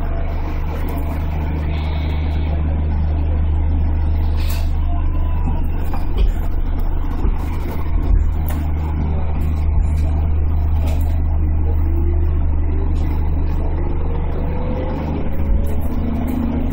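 A 211 series electric train running, heard from the driver's cab: a steady low hum and rumble of the motors and wheels on the rails, with a few light knocks and a faint tone rising in pitch near the end.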